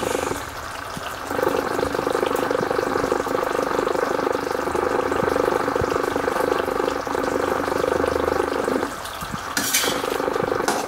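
Chicken curry sizzling and bubbling in a steel kadai while a spoon stirs it. The sizzle eases briefly twice, and a short sharp noise cuts through near the end.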